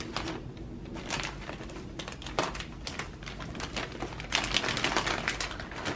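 White plastic bag crinkling as it is handled and opened, in irregular crackles that grow thicker about four seconds in.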